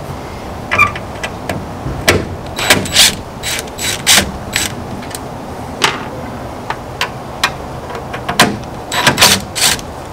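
Cordless drill working the tail-light screws in short bursts, with a string of irregular sharp clicks and brief mechanical whirs.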